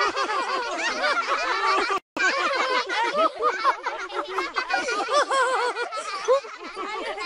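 A group of cartoon children laughing together, many voices overlapping, with a momentary break about two seconds in before the laughter goes on.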